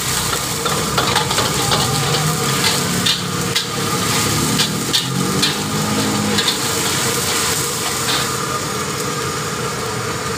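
A long metal spatula scrapes and clanks against a steel wok again and again as oil and sauce sizzle in it. The strokes stop about eight seconds in and the sizzling carries on steadily.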